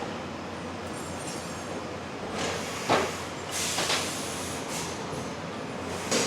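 Prima-Power Shear Genius SG1530 CNC turret punch press running in automatic: a steady machine hum with two sharp metal clanks, one about three seconds in and one near the end, and a short burst of air hiss just after the first clank.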